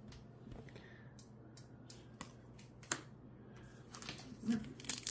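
Faint scattered clicks and ticks of trading cards and foil booster packs being handled on a desk mat. The handling gets busier near the end as a sealed pack is picked up. A low steady hum runs underneath.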